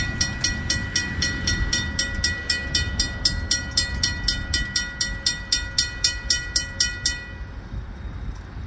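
Railroad grade-crossing bell ringing rapidly, about four strokes a second, over the low rumble of a passing train. The bell stops suddenly about seven seconds in, leaving only the rumble.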